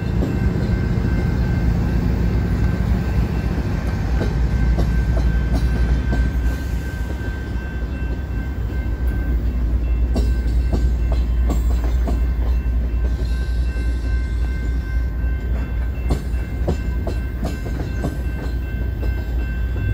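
A slow BNSF freight train passing a grade crossing. The last GE Dash 9 diesel locomotive rumbles by at the start, then loaded tank cars roll through with a low rumble and scattered wheel clicks over the rail joints. A steady crossing-bell tone rings throughout.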